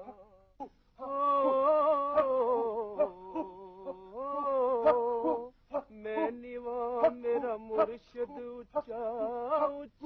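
A voice singing long, wavering held notes, with short sharp percussive taps between the phrases.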